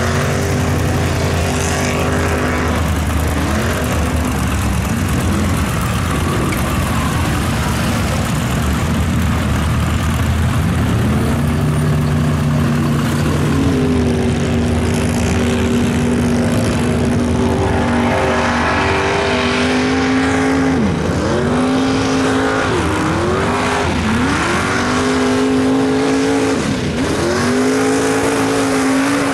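Mud truck's big engine running loud, a steady lower note at first, then climbing to high revs about a third of the way in and holding there. In the last third the revs drop sharply and climb back again about five times, as the driver works the throttle through the mud.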